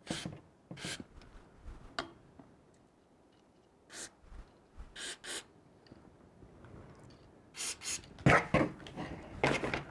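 Aerosol motor cleaner sprayed through a thin straw into an RC truck's electric motor in about eight short hissing bursts, the loudest few near the end.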